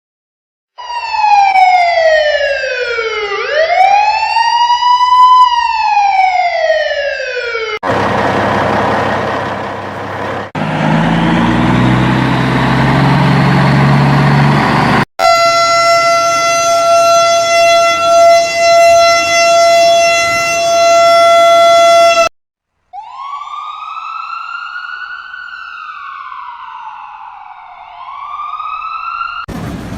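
A sequence of emergency-vehicle siren sound effects. First a siren wails down and back up several times, then comes a few seconds of rumbling engine and traffic noise, then a steady loud horn-like tone. Near the end a siren wails again.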